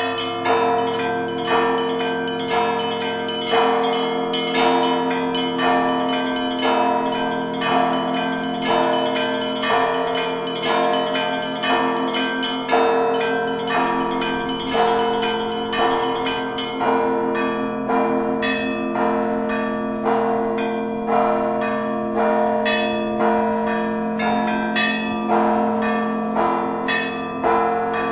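Russian Orthodox church bells being rung together in a full peal: rapid, repeated strikes of the smaller bells over the long ring of the large bells. About two-thirds of the way through, the highest bells thin out and the strikes come sparser.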